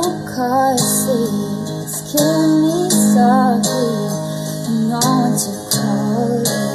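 A woman singing a slow, tender song with wavering, sliding notes over acoustic guitar accompaniment.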